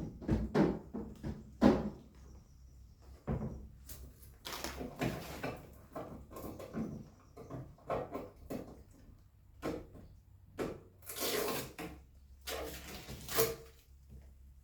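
Handling noises from a new fridge being unwrapped: irregular knocks and clicks of doors, drawers or shelves being moved, with a sharp knock near the start and stretches of rustling packaging later on.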